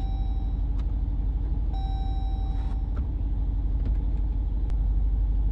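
The SRT Jeep's V8 engine running through its muffler-deleted exhaust, a steady low rumble that grows a little louder toward the end. Two electronic beeps of about a second each sound over it in the first half.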